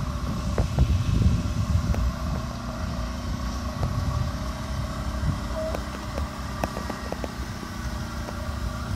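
Quad bike (ATV) engines running steadily with a low rumble, and a few faint clicks.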